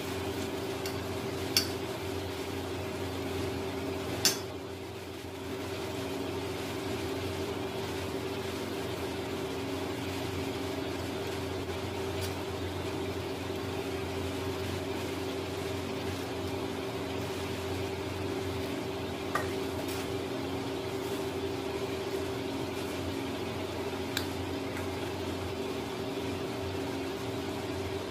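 Hot oil with cumin seeds and ground spices sizzling in a metal kadhai, over a steady background hum. Two sharp clicks come in the first few seconds, the second the loudest, with a few fainter ticks later.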